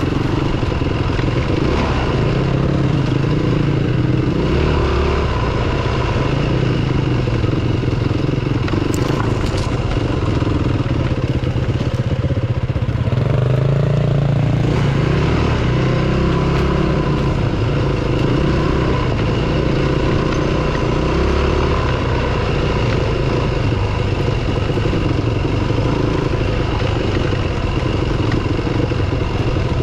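Yamaha WR250F dirt bike's single-cylinder four-stroke engine running under way on a rough forest track, the revs rising and falling as the throttle is opened and closed.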